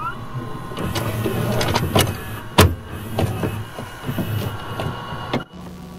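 VHS tape loading into a VCR: a short rising motor whine, then a run of mechanical clicks and clunks, the loudest about two and a half seconds in. Near the end it cuts off and gives way to a steady hum with tape hiss.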